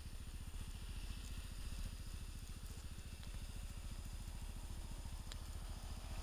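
Small off-road vehicle engine running steadily, with an even, rapid beat.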